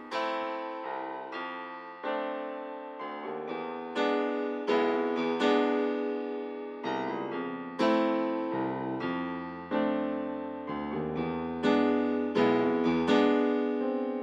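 Background piano music: notes and chords struck one after another, each ringing and fading.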